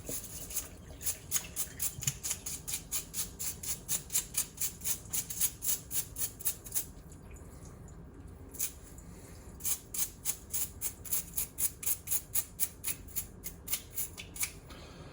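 A brush scrubbing a small metal Minimoog keyboard bellcrank in quick back-and-forth strokes, about four or five a second, in two runs with a pause of a couple of seconds about halfway.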